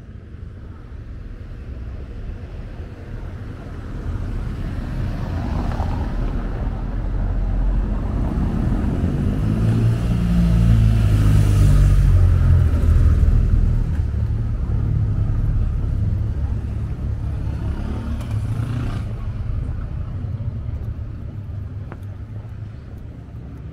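A motor vehicle's engine passing slowly by, growing louder to a peak about halfway through and then fading away.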